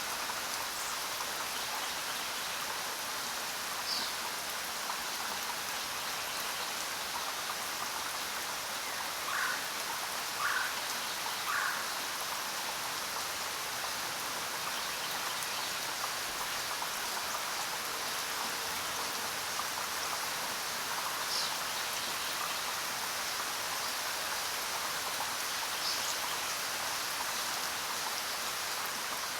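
Steady jungle rain falling on surfaces, an even hiss at a constant level. Three short animal calls sound about a second apart near the middle, with a few brief high chirps scattered through.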